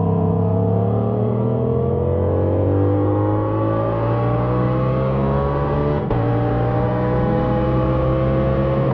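Motorcycle engine accelerating hard under full throttle, its pitch rising steadily, with a quick upshift about six seconds in and another near the end.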